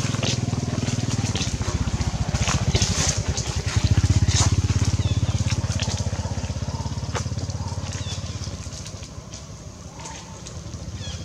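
A small engine running, growing louder about four seconds in and fading away after about eight seconds, with scattered light clicks over it.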